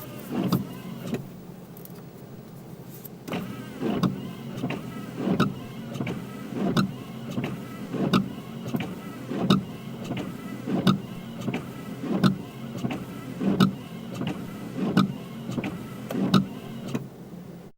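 Car windshield wipers running: the steady hum of the wiper motor, with the blades sweeping back and forth in a regular rhythm, one stroke about every 1.4 seconds from about three seconds in.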